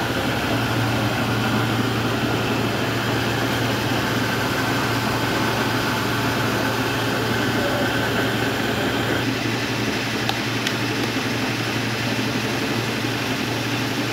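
Small rice mill running: its belt-driven hulling and polishing machines make a steady, loud mechanical drone with a constant low hum underneath.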